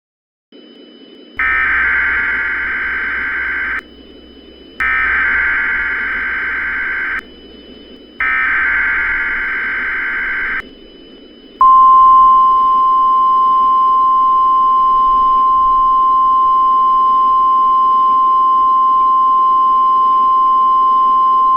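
Emergency Alert System SAME header: three bursts of warbling digital data tones about a second apart, then the NOAA Weather Radio warning alarm, a single steady 1050 Hz tone held for about ten seconds, over radio static hiss. The header and alarm tone signal an incoming severe thunderstorm watch alert.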